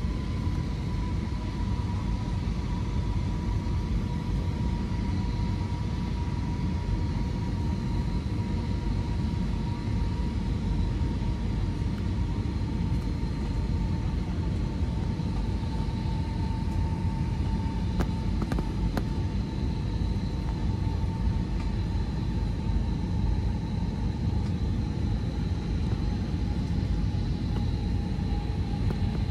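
Steady cabin noise of an Airbus A320neo, its Pratt & Whitney geared turbofans and the airflow making a deep, even rumble with a faint whine that drifts slowly lower in pitch. A couple of faint clicks come about two-thirds of the way through.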